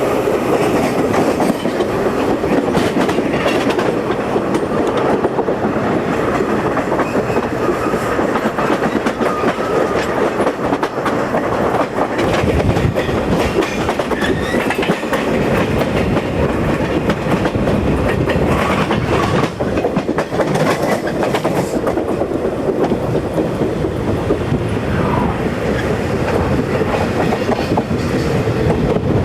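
Passenger train running along the rails, heard from an open vestibule between cars: a steady loud rumble of the running gear with repeated clicks of the wheels over rail joints.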